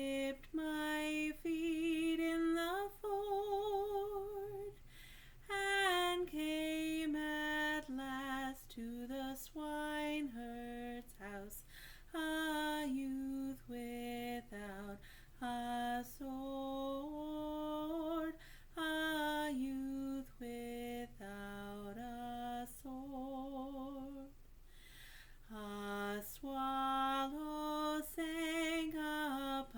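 A woman singing a slow folk song solo and unaccompanied, holding long notes with vibrato, with short pauses between phrases.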